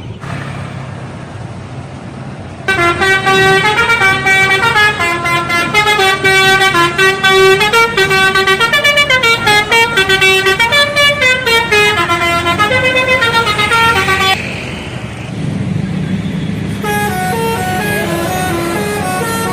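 Indonesian bus telolet horn playing a fast melody of stepping notes, starting about three seconds in and stopping about fourteen seconds in, over a bus engine running. A quieter run of stepping horn notes starts again near the end.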